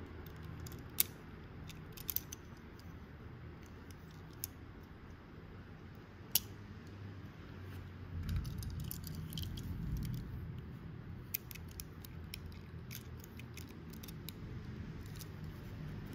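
Small sharp clicks and taps from handling two die-cast toy cars, the little metal and plastic parts knocking against fingers and each other, a dozen or so scattered through, over a faint low hum.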